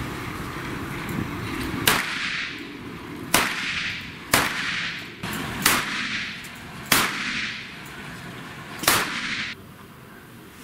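Six handgun shots, spaced one to two seconds apart. Each sharp crack is followed by a short echo.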